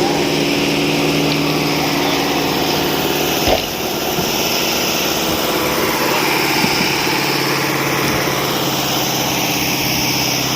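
Engine of concrete-casting machinery running steadily, with one sharp knock about three and a half seconds in. The engine's pitch drops slightly in the second half.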